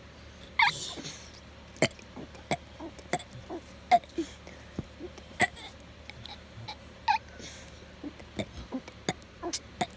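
A child's small gulps and mouth clicks, about two a second, with no full burp.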